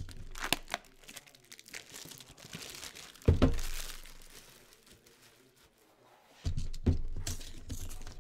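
Plastic wrapping crinkling and tearing as a trading-card tin is unwrapped by hand, with sharp clicks and a couple of knocks from handling; there is a heavier knock about three seconds in.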